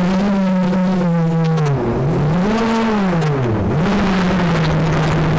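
FPV racing quadcopter's motors and propellers whining. The pitch rises and falls with the throttle, dipping sharply twice, then holds steady near the end.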